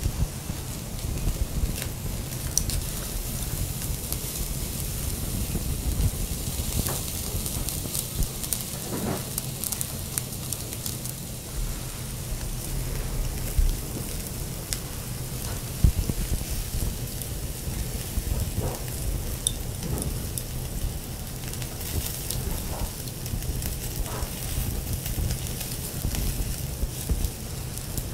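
Wagyu steak, onion slices and shiitake mushrooms sizzling on a wire grill over a tabletop charcoal brazier, a steady hiss full of small crackles and pops, with a sharper pop about sixteen seconds in.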